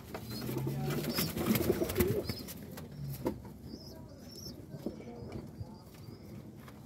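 Homing pigeons cooing, with low drawn-out coos in the first half and scattered short clicks.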